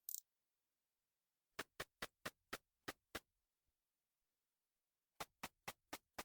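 Ultrasonic song of the katydid Tettigoniopsis nyotaiensis, made audible by a bat detector. It comes through as sharp clicks, about four a second in a run of seven, then a pause, then a second run of clicks near the end. There is a brief high hiss right at the start.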